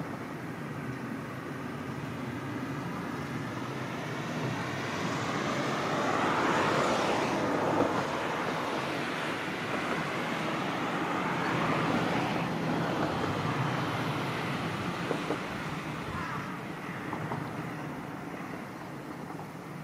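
Road traffic: passing vehicles, their noise swelling and fading about seven and twelve seconds in, over steady background noise.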